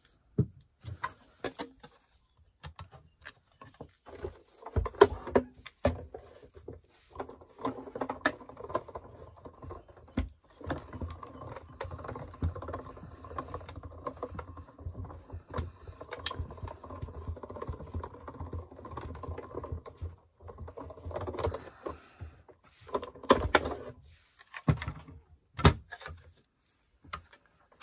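Paper, lace and embossing plates clicking and knocking as they are laid together, then a steady grinding rumble for about fourteen seconds in the middle as the stack is cranked through a manual embossing machine's rollers, with a few more clicks near the end.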